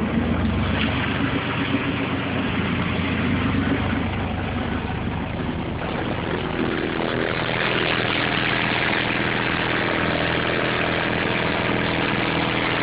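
Very loud low bass tone from a single Fi BTL 18-inch car subwoofer, driven by an IA40.1 amplifier, played continuously in a bass 'burp'. The tone changes about six seconds in.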